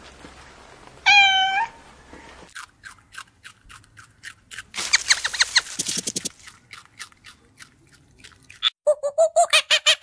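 A domestic tabby cat meows once, loud and short, about a second in. Rapid clicks and crackles follow through the middle, and near the end comes a fast run of short squeaky calls, about seven a second.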